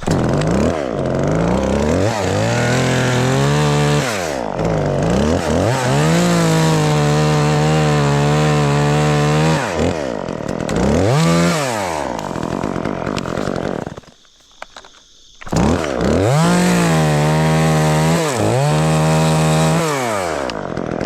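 Two-stroke chainsaw revving and cutting wood, its pitch swooping up and down between stretches of steady running under load. It cuts out for about a second and a half past the middle, then revs and cuts again.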